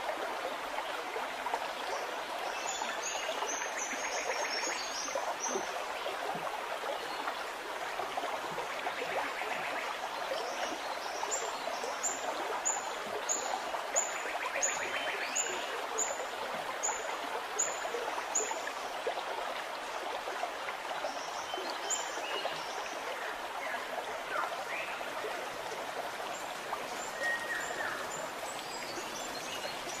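Caged cucak rante (cucak ranting) giving short, high chirps: a quick run of notes a few seconds in, then about ten evenly spaced chirps, a little over one a second, in the middle, and a few fainter ones near the end. A steady rushing noise like running water lies under them throughout.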